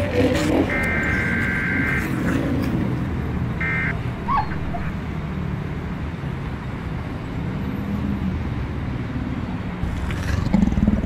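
Dense city traffic heard from above: a steady low rumble of many engines and tyres. A car horn sounds for about a second early on and briefly again around four seconds in.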